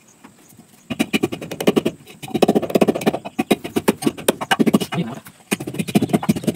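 Small wooden pestle pounding rapidly in a wooden mortar, a fast run of knocks that starts about a second in, breaks off briefly about five seconds in, and starts again.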